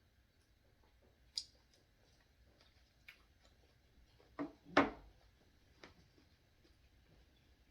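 A few light clicks and taps from handling food and utensils, with two louder knocks in quick succession a little past the middle.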